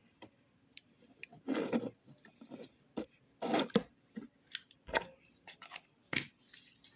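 Slime being squished and pressed by hand: a few short wet squelches with sharp clicks and pops in between.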